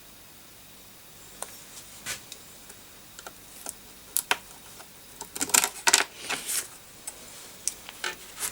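Irregular small clicks, taps and light rattles of hardware being handled on a workbench, sparse at first and busiest about five to six seconds in.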